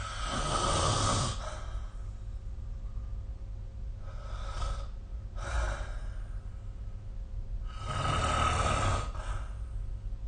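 A sleeping person snoring: two long, loud snores about eight seconds apart, each lasting over a second, with two shorter, fainter breaths between them. A steady low hum sits underneath.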